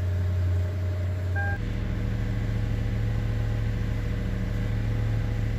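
Lexus LS460's 4.6-litre V8 idling steadily, running again now that a faulty fuel rail pressure sensor has been replaced to cure its no-start. A brief electronic beep sounds about a second and a half in, and the engine note shifts slightly just after it.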